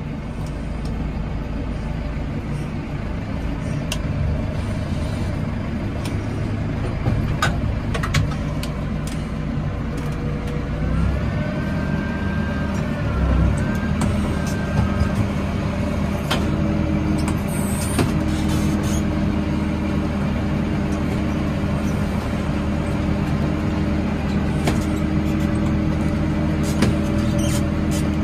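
Tractor engine running, heard from inside the cab, with scattered rattles and clicks. The engine note steadies at a higher pitch about eleven seconds in. A brief wavering whistle-like tone comes in the middle.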